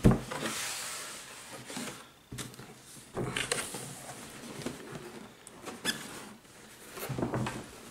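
A cardboard box being opened by hand: a thump right at the start, then irregular scraping and rustling of the cardboard flaps with scattered small knocks.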